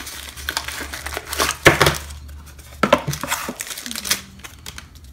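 A cardboard product box and plastic packaging being handled: irregular crinkling and rustling with sharper clicks and knocks, busiest in the first two seconds and again around three seconds in, quieter near the end.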